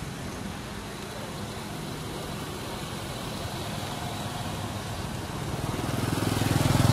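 Engine of a passing motor vehicle, a steady low drone that grows louder near the end.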